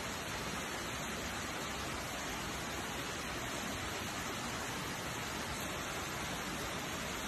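A steady, even hiss with no distinct events and no change in level.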